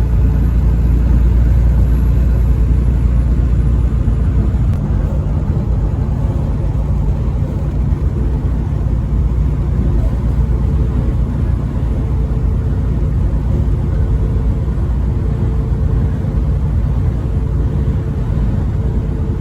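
Steady road and engine rumble of a vehicle driving at highway speed, heaviest in the low range and easing slightly about four seconds in.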